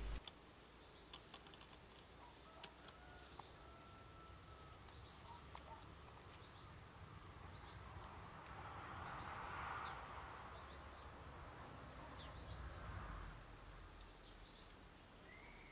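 Quiet woodland ambience: faint scattered clicks in the first few seconds, a soft hiss that swells and fades around the middle, and a faint short bird call near the end.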